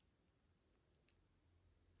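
Near silence, with a couple of faint clicks about a second in.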